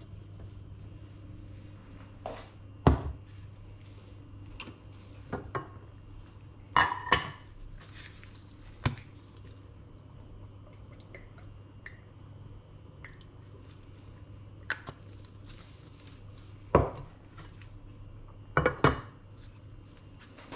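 Cookware handled on a ceramic hob: scattered clinks and knocks of pot lids and a spoon against metal pots, about a dozen separate strikes, over a steady low hum.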